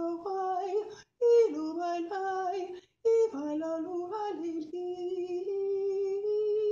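A woman singing unaccompanied in short flowing phrases, broken by two quick breaths, then holding one long steady note from about five seconds in.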